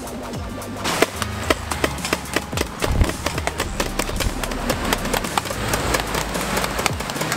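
Land Rover Defender 200Tdi's 2.5-litre four-cylinder turbodiesel running as it wades through a flooded mud track. From about a second in, water and mud splash and slap around the wheels in quick, irregular knocks.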